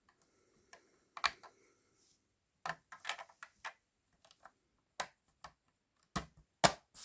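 Sharp plastic clicks and taps of LEGO parts being handled, in irregular scattered groups, the loudest about a second in and twice near the end.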